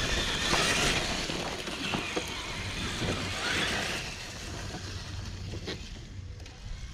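Traxxas TRX-4 RC truck driving over a dirt trail: the electric drivetrain whirring with tyre noise on the ground, getting fainter after about four seconds as it moves away.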